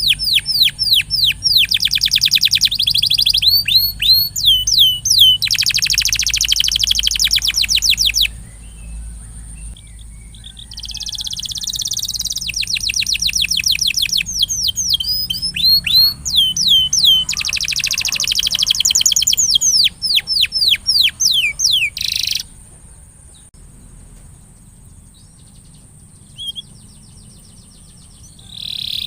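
Domestic canary singing a fast, loud song of rapid trills and repeated downward-sweeping notes. It drops away for a couple of seconds about eight seconds in, then stops abruptly about 22 seconds in, leaving only a faint steady high whine and hum.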